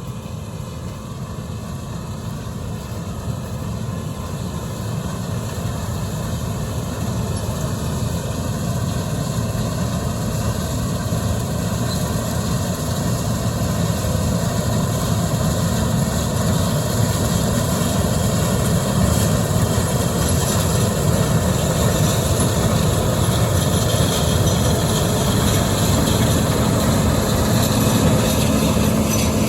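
John Deere 9400 combine running, a steady heavy machine drone that grows gradually louder.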